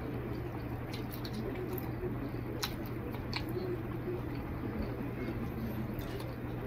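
Fingers mixing and squeezing moistened rice with curry on a plate: soft squishing with a few small clicks, over a steady low hum.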